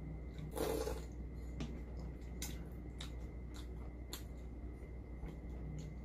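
Close-up eating sounds from a spoonful of spicy beef-and-rice soup (yukgaejang gukbap). There is a short wet slurp about half a second in, then scattered soft clicks of chewing and the spoon.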